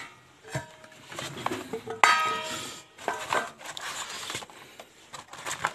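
A steel plate is set down with a sharp clang that rings briefly, followed by smaller clattering knocks.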